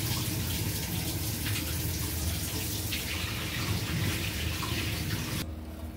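Giloy and tulsi decoction boiling hard in a steel pot: steady bubbling that cuts off abruptly near the end.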